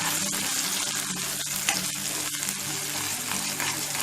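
Thick ground thoothuvalai chutney paste frying in sesame oil in a kadai while being stirred. There is a steady sizzle, with irregular light scrapes and ticks from the spoon.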